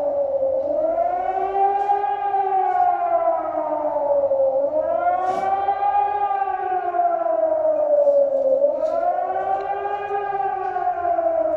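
German civil-defence warning siren wailing during the nationwide siren test. Its tone rises and falls in slow sweeps, about one every four seconds.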